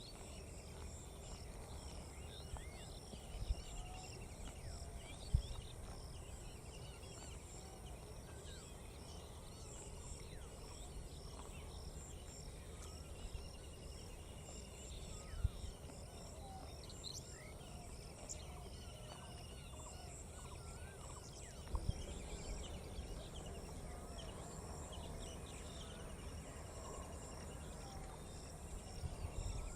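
Outdoor pond-side ambience: many small birds chirping and calling over a steady, high, pulsing insect chorus, with a low rumble underneath. A few sharp knocks stand out, the loudest sounds in it.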